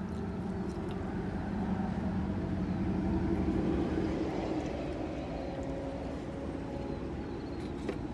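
A motor vehicle's engine running, its hum swelling about three seconds in and then easing off.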